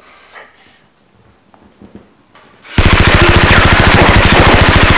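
Rapid automatic fire for a Nerf Rhino-Fire blaster, heard as loud machine-gun fire: a fast, even rattle of shots that starts suddenly about three seconds in, after a few faint clicks.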